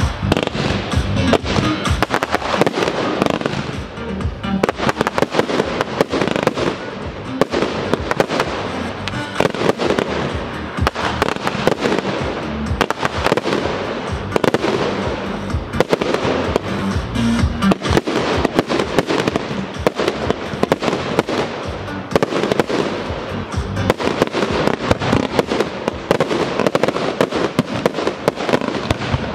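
Aerial fireworks shells bursting in rapid, dense succession, with many bangs and pops a second, over music for a pyromusical show.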